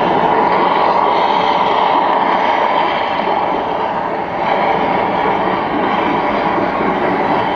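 Steady, loud rushing roar of the Prometheus volcano's eruption effects, dipping briefly about four seconds in.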